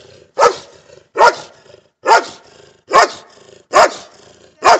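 German Shepherd barking at a steady pace, six loud single barks a little under a second apart.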